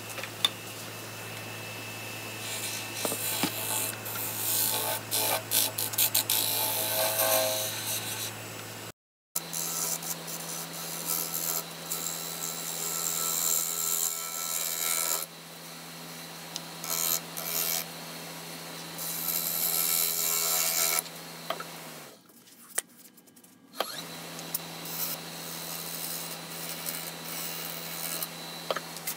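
Wood lathe motor humming steadily while a turning gouge cuts a spinning wood-and-epoxy-resin blank, in irregular stretches of scraping, hissing cuts. The hum jumps to a higher pitch about a third of the way in and drops out briefly about three-quarters through.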